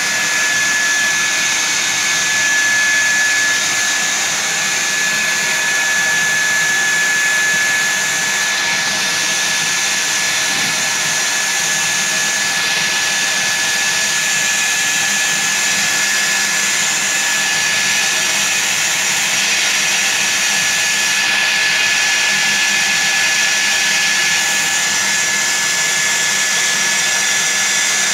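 Water filter plant running: a loud, steady rushing noise with a constant high whine on top.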